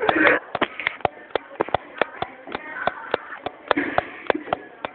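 A rapid, uneven run of sharp clicks or taps, about four a second, with faint voices in the background.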